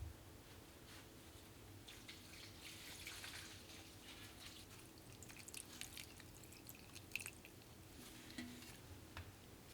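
Water poured gently onto potted plants, a soft hiss followed by scattered drips and ticks.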